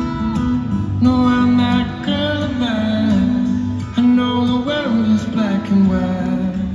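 Live solo acoustic guitar, fingerpicked and strummed, amplified through an arena sound system. A man's voice sings over it from about a second in until near the end.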